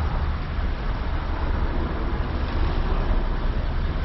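Steady low engine rumble, even in level, with no sharp events.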